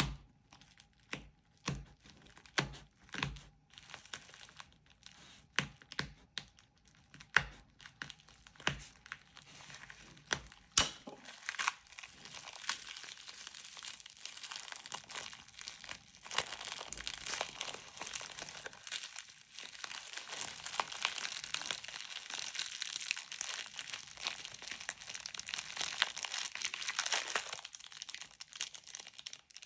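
Packaging being handled by hand: a run of separate sharp clicks and taps for the first ten seconds or so, then steady crinkling and rustling of wrapping.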